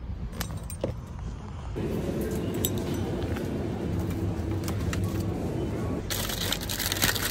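Steady low hum of a supermarket's chilled shelving and store background, with a few faint clicks at first. A hiss joins in about six seconds in.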